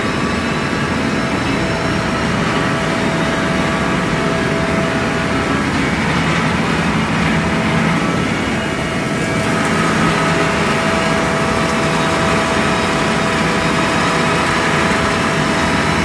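Laader Berg Maxfoam continuous foam production line running: loud, steady machinery noise with several steady tones held through it.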